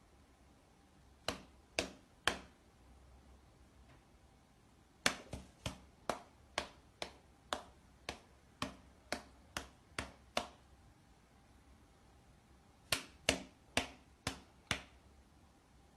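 Sharp single clicks in three groups: three early, then about a dozen at roughly two a second, then five more near the end.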